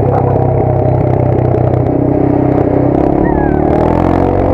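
Motorcycle engine running steadily while riding, with its note shifting a couple of seconds in.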